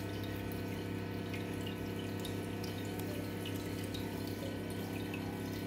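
Steady water bubbling and trickling in an aquarium, with faint drips, over a low steady hum.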